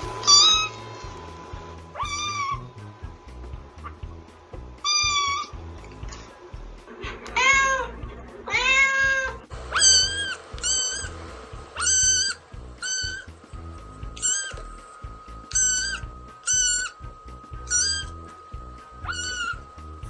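Cats meowing again and again over background music: a few short meows, two longer, lower drawn-out meows about halfway through, then a run of short, high-pitched meows at roughly one a second.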